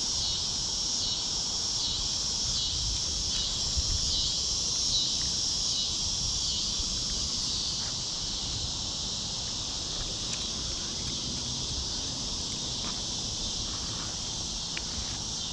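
A steady, high, shimmering chorus of insects in the surrounding vegetation, pulsing faintly at first and easing a little about halfway, over a low rumbling outdoor background.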